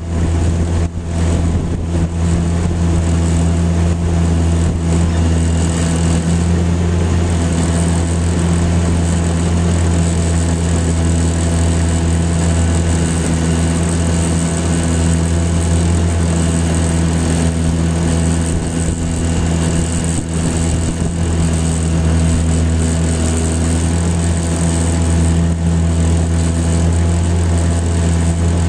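Tohatsu outboard motor running at a steady cruising speed, pushing a small boat; a constant low engine drone that holds one pitch. The newly repaired motor is running well.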